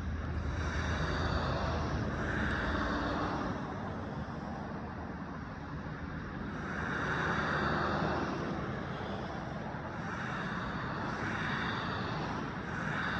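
Road traffic: cars passing one after another, each swelling up and fading away, over a steady low rumble.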